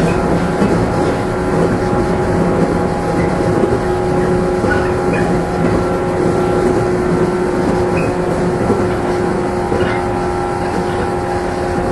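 Running noise inside the motor car of a JR 115-series electric train: a steady traction-motor hum with the rumble of wheels on rail, at an even speed with no rise or fall in pitch.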